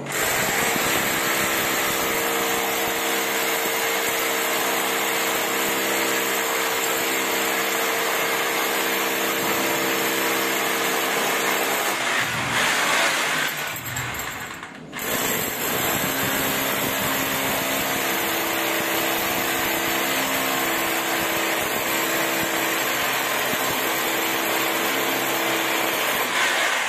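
Corded electric drill boring into a concrete ceiling with a masonry bit, its motor running steadily. It dips briefly about fourteen seconds in, then runs on.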